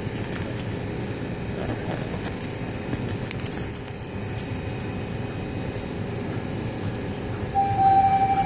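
Steady low rumble and hum inside a TTC Line 1 subway car standing at a station, with a few faint clicks. Near the end, the first clear tone of the descending door-closing chime sounds, signalling that the doors are about to close.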